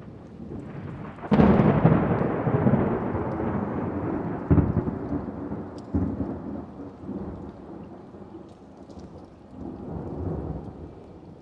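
Thunderstorm: steady rain with a loud clap of thunder about a second in that rolls and slowly dies away, then further rumbles near the middle and again towards the end.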